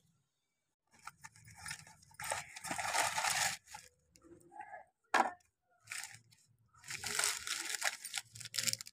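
Plastic biscuit wrappers crinkling and tearing as individually wrapped packets are handled and opened, in several bursts with short pauses between them. A single sharp click about five seconds in is the loudest sound.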